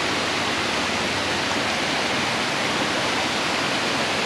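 Waterfall: falling water making a steady, even rushing noise with no breaks.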